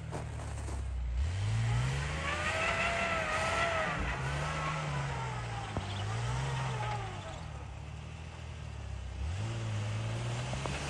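A vehicle's engine revving up and easing off about four times, with a higher whine rising and falling along with it, as the vehicle struggles to pull out through deep snow.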